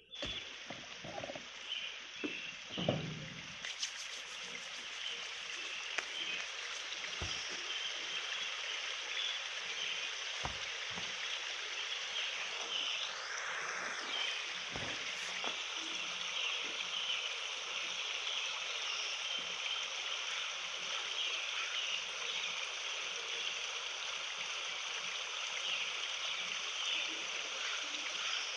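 Steady forest ambience: a continuous even hiss with faint repeated chirps over it, after a few soft knocks in the first few seconds.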